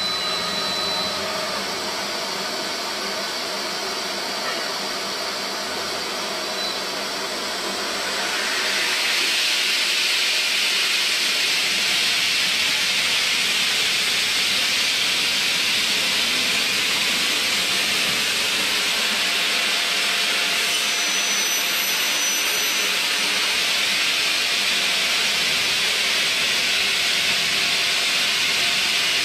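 CNC machining center's spindle cutting grooves into sheet stock: a steady, loud, hissing machining noise that steps up louder and brighter about nine seconds in, then holds steady.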